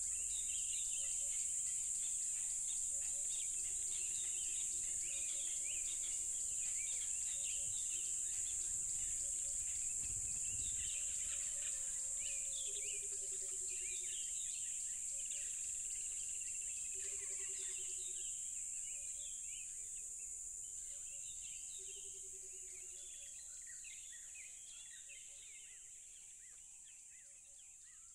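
Loud chorus of crickets, a steady high-pitched shrill, with scattered bird chirps and short low trilled calls recurring every second or two. The whole soundscape fades out over the last ten seconds.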